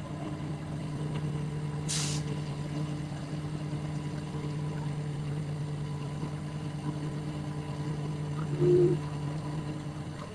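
A heavy vehicle's engine, such as a truck's, running steadily. There is a brief hiss about two seconds in and a short, louder tone near the end.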